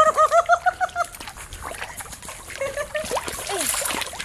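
A fast run of short, high-pitched calls in the first second, then irregular splashing and sloshing in shallow, muddy pond water as people wade in to land a hooked fish.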